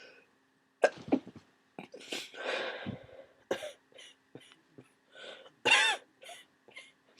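A person with a cold coughing, about a dozen short coughs in a run, with the loudest, voiced cough just before six seconds in.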